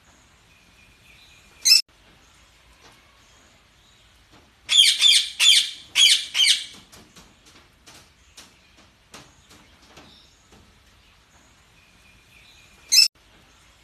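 Parakeets calling: a short sharp call near the start, a burst of four loud chattering calls around the middle, and another short sharp call near the end, with faint soft chirps and small clicks in between.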